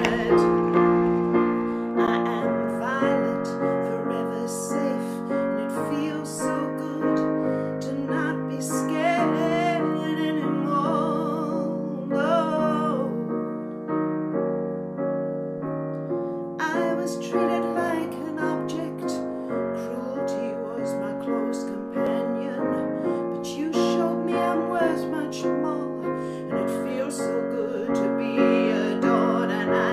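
Gentle piano ballad music, with a woman's voice singing softly in places.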